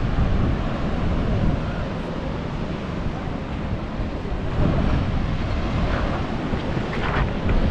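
Wind buffeting the microphone in gusts, over the steady rush of Atlantic Ocean surf.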